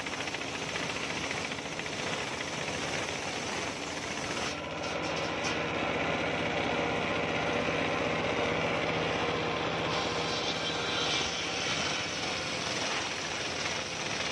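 Homemade circular sawmill running, its large toothed blade ripping lengthwise through a coconut-wood beam: a steady, dense cutting noise that grows slightly louder about five seconds in.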